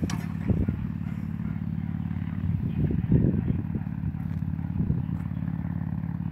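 Small engine running steadily with a low, even hum. A few brief louder bits of handling noise come about three seconds in.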